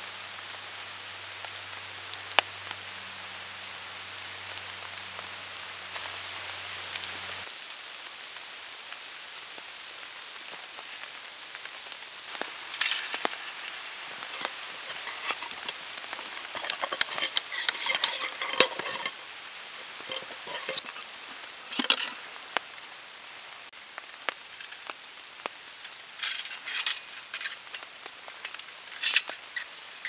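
Steady rain hiss. From a little before halfway, clinks and rattles of a small stainless wood-burning stove and a nesting metal cook-pot set being handled and put together.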